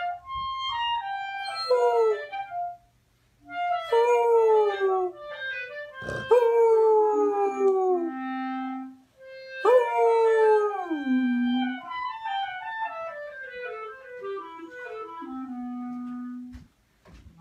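A dog howling along to a clarinet: several long howls that slide down in pitch, with the clarinet's stepped notes playing between and under them.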